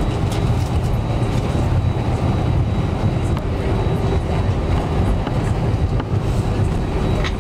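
Airbus A320 cabin noise while taxiing on one engine: a steady low rumble with a faint thin whine and scattered light clicks and rattles.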